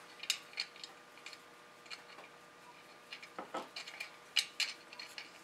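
Faint, irregular clicks and ticks of a small brass knurl nut and washer being threaded by hand onto a lamp socket's nipple inside a glazed ceramic Christmas tree base, the small metal parts clicking against the ceramic.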